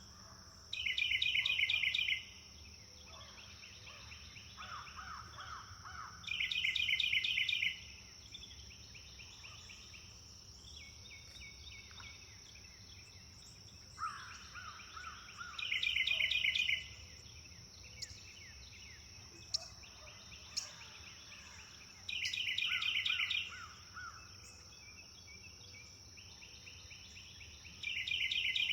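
Birds singing: one bird repeats a loud, rapid trilled phrase of about a second and a half, five times, roughly every six seconds, with fainter songs and calls from other birds between. A steady high-pitched hum runs underneath.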